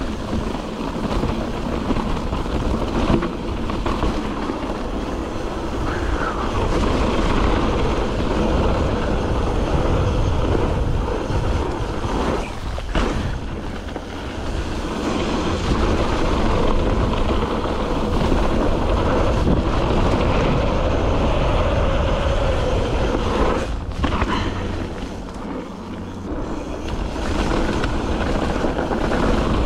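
YT Jeffsy full-suspension mountain bike descending a dry, rutted dirt trail: steady tyre rumble and rattle over dirt and rocks, with wind rushing over the camera microphone. The noise eases briefly a couple of times.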